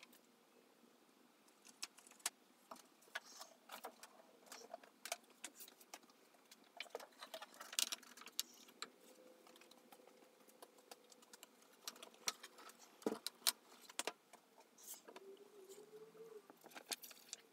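Scattered small clicks, taps and rustles of a glass sheet and a sheet of paper being handled, lifted and set down at irregular moments throughout.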